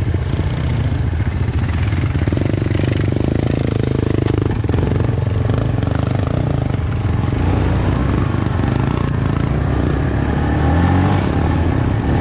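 ATV engine running steadily under throttle as the quad rides along a rough grass and dirt trail.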